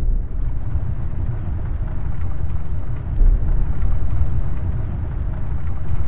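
Cinematic logo-intro sound effect: a loud, deep rumble with a heavy hit about three seconds in.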